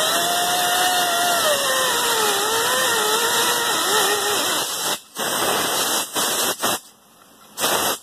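Handheld cutoff-wheel tool cutting a tapered repair pin down close to the deck of a cast-iron 400 small-block Chevy cylinder head. A steady hiss with a whine that sags and wavers in pitch as the wheel bites. Past the middle it cuts off and runs again in a few short bursts.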